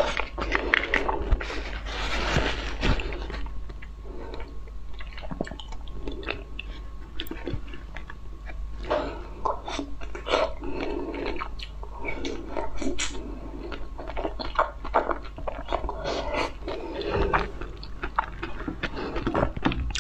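Close-miked eating sounds: jelly sucked from a squeeze tube at first, then soft, moist food bitten and chewed, with many wet clicks and smacks of the mouth.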